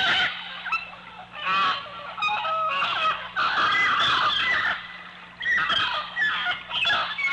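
Jungle birds calling over one another in loud bursts of harsh, chattering and honking calls, each bout lasting a second or two with short lulls between.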